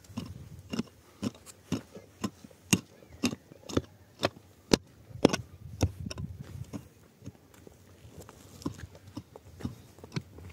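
Short-handled pick striking hard, stony soil at the bottom of a hole, sharp knocks about two a second, then slower and fainter in the second half.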